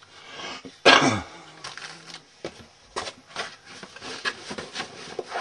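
Plastic model kit boxes and parts being handled: a string of light clicks, knocks and rustles, with a louder short sound about a second in.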